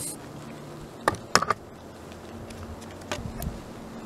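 Camera handling noise: a few short knocks and scrapes as the camera brushes against camouflage clothing and tree bark, in two clusters about a second in and about three seconds in.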